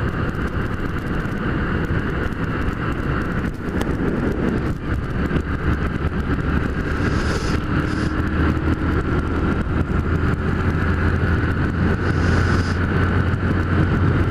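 Motorcycle engine running at cruising speed with wind noise on the rider's camera microphone; the engine's low hum grows stronger from about six seconds in. Two brief hissing rushes come near the middle and near the end.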